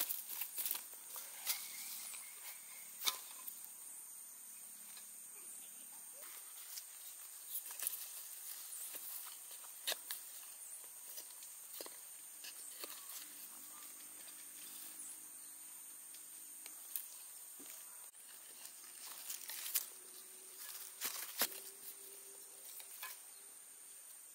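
Steady high insect drone, with scattered light taps and knocks throughout.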